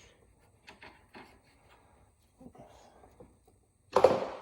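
Light scattered clicks and knocks of tools working on a motorcycle's rear wheel assembly, then one loud, sharp sound near the end.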